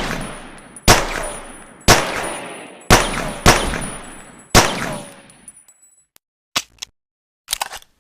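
Pocket pistol gunshots: six sharp shots, mostly about a second apart, each followed by an echoing tail. Near the end come a few short clicks.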